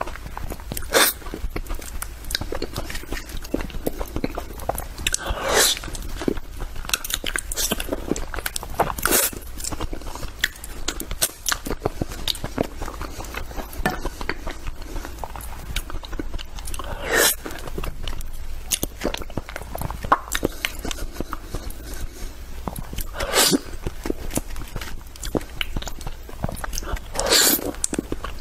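Close-up mouth sounds of eating soft durian flesh: wet biting, chewing and lip-smacking, with a handful of louder sucks spaced a few seconds apart.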